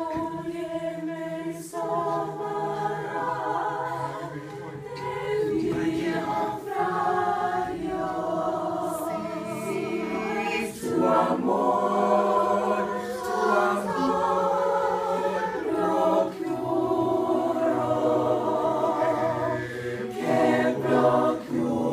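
High school choir of mixed male and female voices singing a cappella in several parts, holding sustained chords. The singing gets louder about eleven seconds in.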